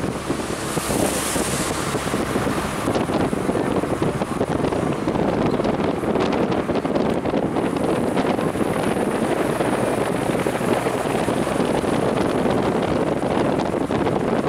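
Steady rush of wind on the microphone from a moving car's open side window, over the car's road noise.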